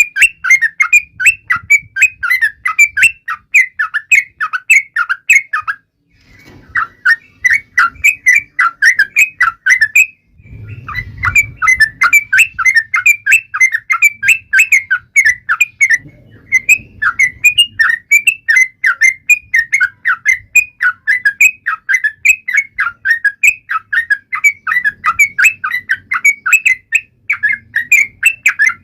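Yellow-vented bulbul (cucak trucuk) giving a fast, loud run of short chattering notes, several a second, with brief breaks about six and ten seconds in: the 'taunting' challenge call used to set other trucuk birds singing.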